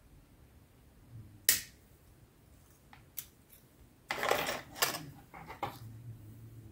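Sharp snip of cutters clipping a small plastic part off a model kit sprue, followed about 4 s in by a short scrape and rattle and a few light clicks as plastic parts and tools are handled.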